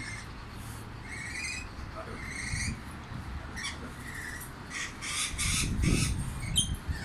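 Pet birds chirping and calling: short chirps every second or so, then a louder, denser run of calls with some rustling in the last couple of seconds.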